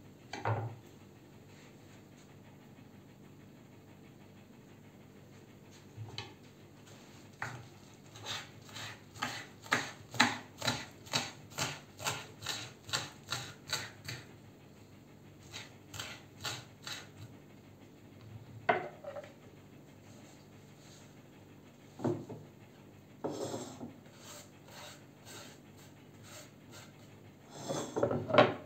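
Kitchen knife chopping broad bean leaves on a wooden cutting board: scattered single cuts, then a steady run of quick knocks about three a second through the middle. Near the end the knife scrapes across the board as the chopped leaves are cleared off.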